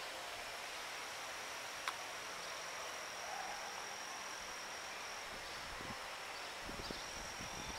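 Insects shrilling on one steady high note over a faint outdoor hiss. The note drops out briefly in the latter half. A single click comes about two seconds in, and a low, uneven rumble with thumps sets in near the end.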